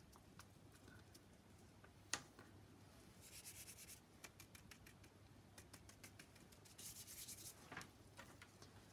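Faint rubbing of gloved fingers sprinkling a pinch of glitter: two short, high, scratchy rubbing hisses, about three seconds in and again near seven seconds, with scattered light ticks and a single sharp click about two seconds in.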